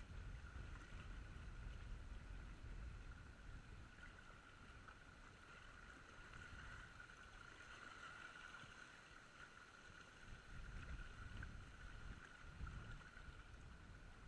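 Faint outdoor ambience at a river's edge: small waves lapping on shoreline rocks, with a low uneven rumble of wind on the microphone and a faint steady high hum.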